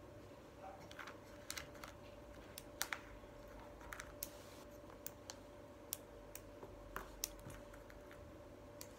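Small wooden pattern-block pieces clicking and tapping against each other and the wooden tray as they are picked up and set in place: a dozen or so light, irregular clicks.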